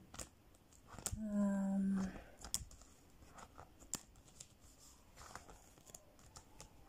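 Plastic envelope pages of a ring binder being flipped and handled, with light clicks and rustles. A short, steady hummed 'mmm' from a voice comes about a second in.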